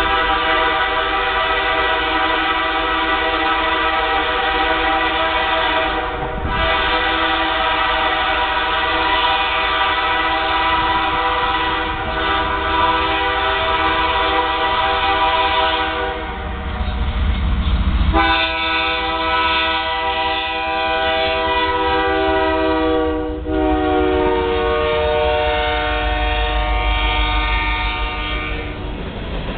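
Multi-note air horn of a CN GE C44-9W diesel freight locomotive sounding four long blasts, with brief breaks between them. A low diesel rumble swells underneath as the locomotives draw close near the end.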